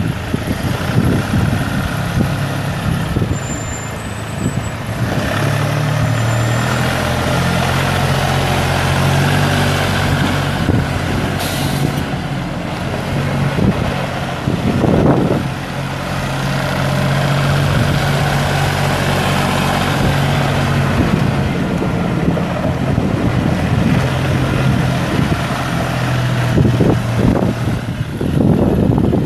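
Kubota L3560 tractor's 1.8-litre three-cylinder diesel engine running as the tractor drives across gravel. Its note rises and falls as the engine speed changes.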